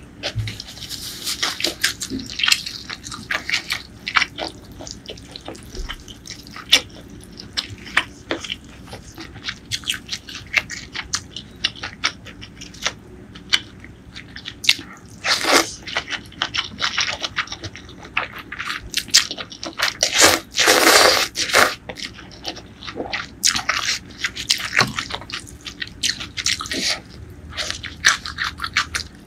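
Close-miked mouth sounds of someone eating rice noodles with pork: wet chewing, smacking and many small clicks. There is a noodle slurp about halfway through and a longer one about two-thirds in.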